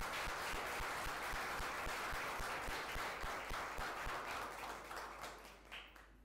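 Audience applauding, a dense patter of clapping that thins and fades out near the end.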